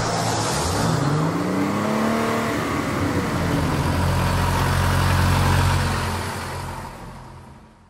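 Car engine sound effects with no music under them: an engine revs up in a rising pitch over a couple of seconds, then settles into a steady low drone over road noise and fades out near the end.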